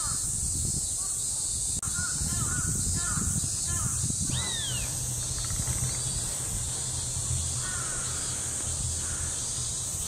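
Crows cawing in short series of a few calls about half a second apart, with one higher, longer call about four seconds in.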